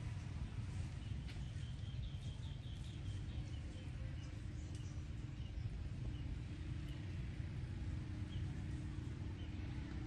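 Steady low outdoor rumble with faint, high chirps: a quick run of them about two seconds in and a few scattered ones later.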